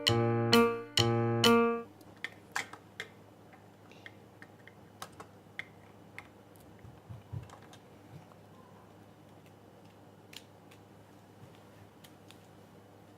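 A short run of music with piano-like notes stops about two seconds in. Then come scattered faint clicks of small plastic LEGO pieces being handled and pressed together.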